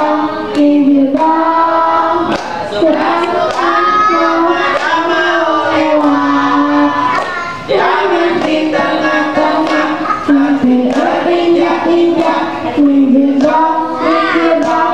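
A young girl singing a song solo into a microphone, holding long notes in a high child's voice, with hand clapping keeping time along with her.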